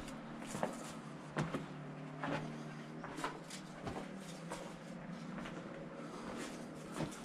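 Irregular footsteps on dry, rough ground: sharp crackles and knocks about once a second, over a faint steady low hum.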